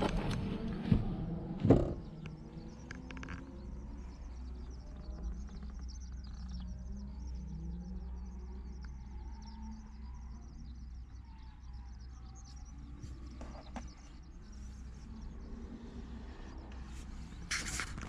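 Birds chirping outside over a steady low rumble, with a few sharp knocks in the first two seconds and a brief louder rustle near the end.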